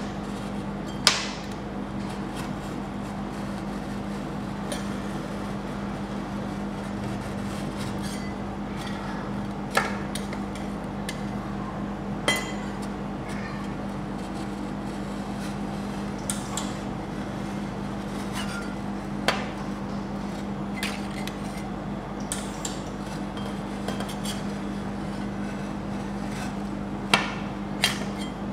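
Metal spatula scraping a frozen ice cream sheet off a steel cold plate to roll it, with occasional sharp clinks of the blade striking the plate. The loudest clink comes about a second in and two come close together near the end. A steady hum runs underneath.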